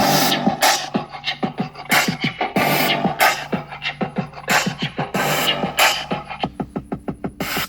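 Music played loud through a newly installed car audio system: a DJ mix with a punchy beat and strong, bright highs from the tweeters and mid-range speakers. A quick run of rapid hits comes near the end.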